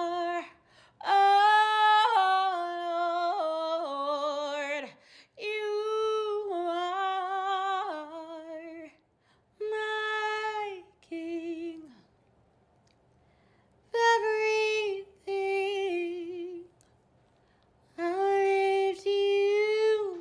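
A woman singing a worship melody solo and unaccompanied, without clear words. She sings in held phrases with wide vibrato, broken by short pauses and one longer break about halfway through.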